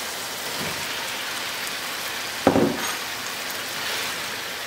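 Lamb and yogurt masala sizzling steadily in a pan over high heat, with one sudden loud thump about two and a half seconds in as the cauliflower is tipped into the pan.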